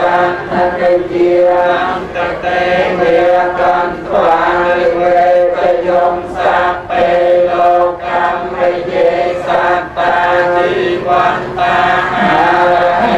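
Buddhist chanting by a group of voices in unison, held on a few steady pitches in phrases with short breaks between them.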